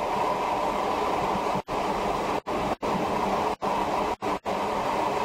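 Tobu 5700 series electric train running, heard from inside the passenger car as a steady running noise. The sound drops out briefly about six times.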